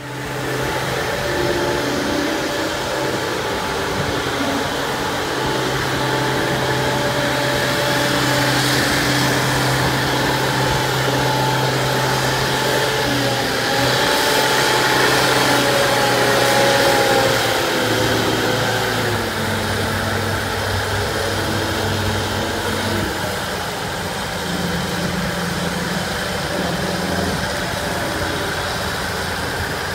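Boat travel lift's engine running steadily while it carries a boat in its slings; the engine note steps down and back up a few times in the second half.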